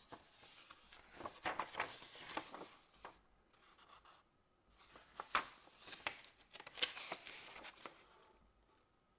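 Faint rustling of a folded paper instruction leaflet being unfolded and leafed through by hand, in two short spells of crackles: one about a second in and another past the middle.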